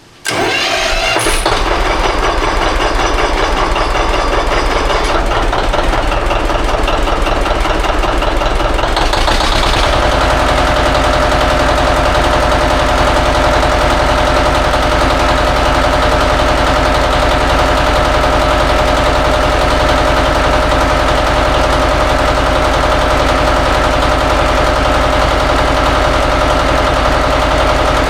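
John Deere 730 two-cylinder tractor engine starting and running, testing the taper-lock flywheel hub just refitted on its crankshaft. The sound changes about ten seconds in, then runs steadily.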